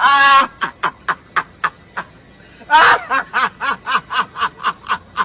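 A person laughing in two fits of rapid, repeated bursts, about four a second, each fit starting loud and tailing off.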